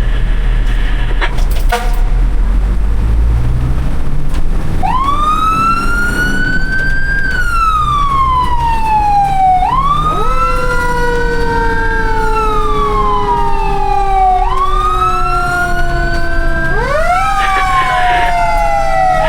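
Fire truck sirens wailing over a truck engine's low rumble. About five seconds in, a siren rises quickly in pitch and falls slowly, over and over. A second siren at a lower pitch joins in overlapping cycles.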